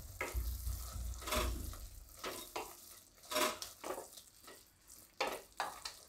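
Spatula stirring thick cooked spinach in a kadai, scraping against the pan in irregular strokes about a second apart.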